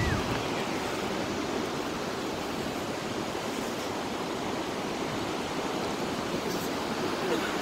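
Ocean surf breaking on the beach: a steady, even rushing of waves.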